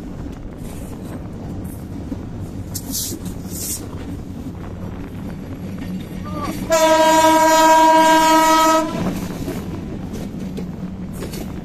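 Diesel locomotive horn sounding one steady blast of about two seconds, a little past the middle, over the steady rumble of the train running alongside.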